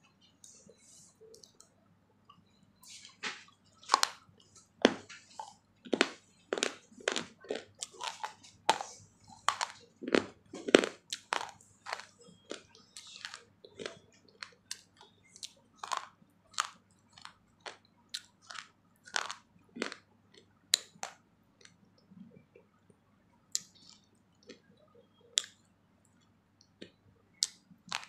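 A person chewing something crunchy close to the microphone: after about three quiet seconds, a quick run of sharp crunches, thinning to scattered crunches in the second half.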